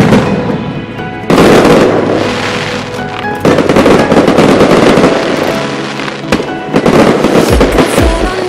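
Aerial fireworks going off in dense crackling volleys. The first starts suddenly about a second in, and fresh waves follow a few seconds later, over music.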